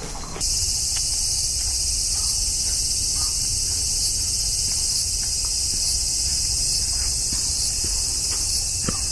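Cicadas in a dense, steady, high buzzing chorus, starting abruptly about half a second in, over a low rumble.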